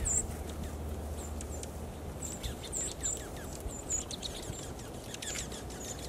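A winter flock of small songbirds calling, with many short, high, thin call notes and some quick down-slurred chips that grow busier in the second half, over a steady low rumble.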